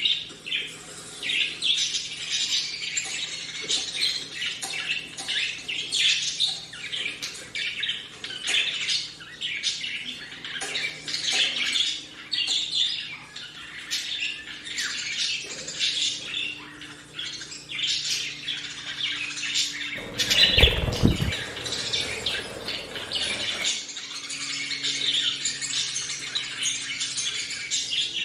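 Budgerigars chirping and squawking in dense, rapid, overlapping calls, a mix of budgie recordings played from an iPad and live budgies chirping along. About twenty seconds in, a loud rushing noise lasts about three seconds.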